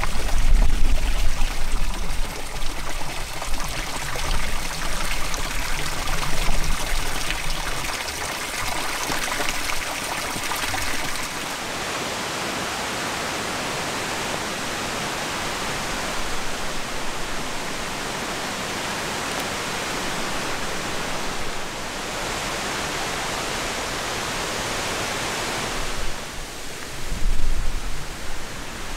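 Steady rushing hiss of running water, heavier with a low rumble for the first several seconds and then even. Near the end come a few brief, louder rustling knocks.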